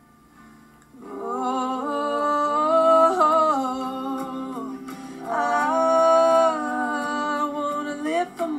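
Background song: after a soft first second, long held wordless vocal notes, like humming, carry the music.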